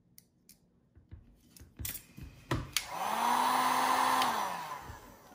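Handheld heat gun switched on and blowing steadily for about a second and a half, then switched off, its fan hum dropping away as it winds down. It is being used to heat a vinyl gun wrap so it sets. A few light clicks and knocks of handling come before it.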